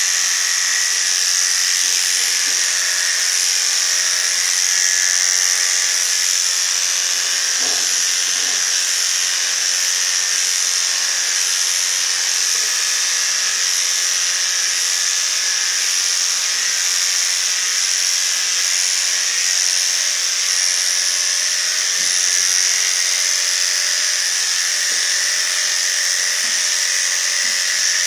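Electric dog grooming clippers running steadily as they clip a Yorkshire Terrier's coat, a constant high buzz that doesn't change.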